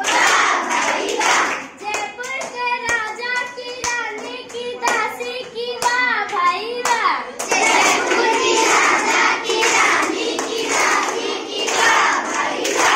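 A group of children singing a chant together while clapping their hands in rhythm. The clapping grows thicker and louder over the second half.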